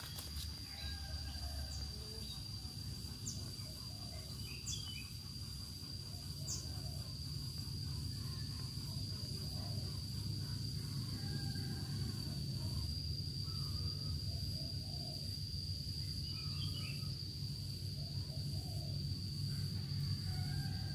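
Outdoor ambience: a steady high-pitched insect trill, with scattered faint bird chirps and a low rumble beneath.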